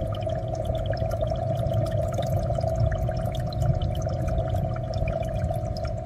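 Aquarium water bubbling and pouring, with many small pops of bubbles over a steady hum and low rumble.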